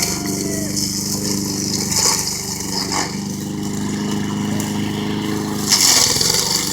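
Gas push lawnmower's engine running steadily under load while cutting tall grass, with a hiss from the grass over it. There are two light knocks about two and three seconds in, and the engine's pitch dips briefly near the end.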